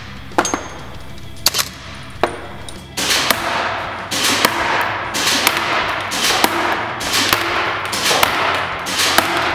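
Top SR16 URX II shell-ejecting electric-blowback airsoft rifle firing single shots on semi-auto: three separate shots in the first couple of seconds, then a faster string of shots at about two a second from about three seconds in.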